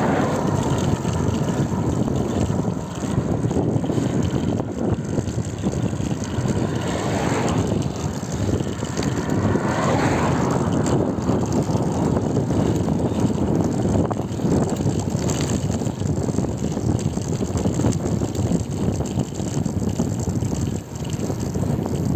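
Steady rushing wind and road noise from riding a bicycle, with the wind buffeting the microphone.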